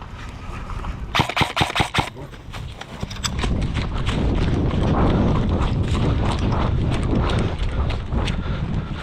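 A rapid burst of about eight sharp cracks within a second, typical of an airsoft gun firing. It is followed by several seconds of loud rustling and thudding close to the microphone, like a player moving in gear.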